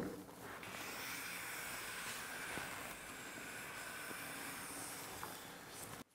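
A steady hiss that opens with a sharp click and cuts off suddenly near the end.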